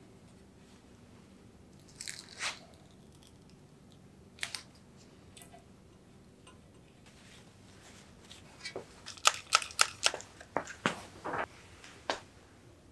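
Crisp crackling of decal backing paper and transfer tape as a vinyl frame decal is peeled and smoothed onto a painted bicycle frame tube. A few scattered crackles come first, then a dense run of them near the end.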